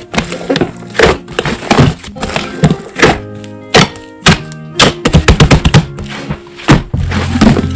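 Slime being pressed and played with by hand, making sharp sticky pops and clicks in quick, irregular succession over background music.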